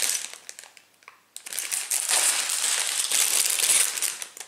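Clear plastic bags of Lego pieces being handled and shaken, crinkling loudly. A short crinkle at the start, a brief pause about a second in, then a longer stretch of crinkling.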